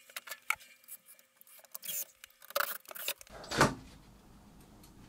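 Handling noise from tools and wood: scattered light clicks and knocks, then one loud knock about three and a half seconds in, as a wooden cleat is set against the wall. No drill runs.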